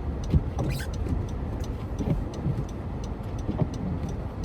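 A car driving, heard from inside the cabin: a steady low rumble of road and engine noise, with scattered light ticks on top.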